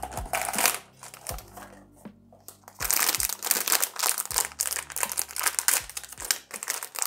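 Foil blind-box bag crinkling in the hands and being torn open, loudest in the second half, over background lo-fi music with a soft beat.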